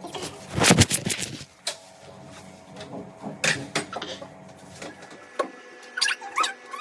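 Kitchen utensils being handled: a loud clatter about half a second in, then scattered knocks and clicks over a faint steady hum.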